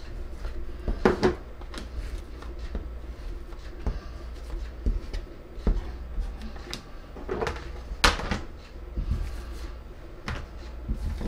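Plastic bowl scraper tapping and scraping on the countertop as it cuts through a sheet of bread dough: a scattering of irregular knocks, the loudest about eight seconds in, over a steady low hum.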